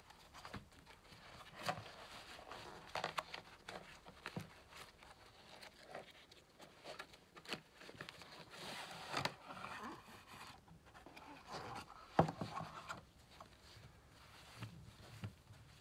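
Gloved hands handling a paperboard box and drawing a pair of boxer briefs out of it: scattered light taps, rubs and rustles, with a longer rustle about nine seconds in and a sharp tap about twelve seconds in.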